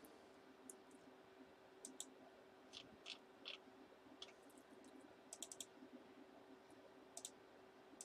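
Faint, scattered clicks of a computer mouse and keyboard, singly and in quick little runs, over a faint steady hum.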